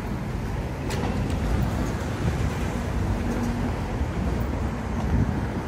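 Steady low rumble of city street traffic, with a single sharp click about a second in.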